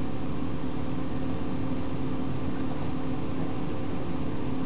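A steady mechanical hum with an even, unchanging drone.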